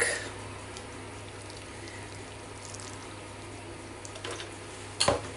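Milk poured from a carton onto mashed potato in a saucepan: a soft, faint pouring. A single sharp knock comes near the end.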